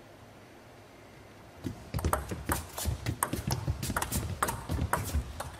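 Table tennis serve and rally. After a quiet first couple of seconds, the plastic ball clicks sharply in quick succession off the rubber-faced bats and the table, several hits a second, with low thuds mixed in.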